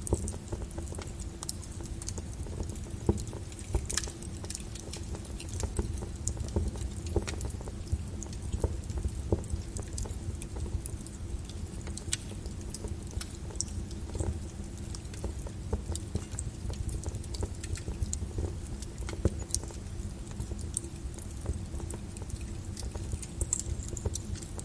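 Small wood fire crackling in a fireplace: irregular sharp pops and snaps, a few louder than the rest, over a steady low rumble.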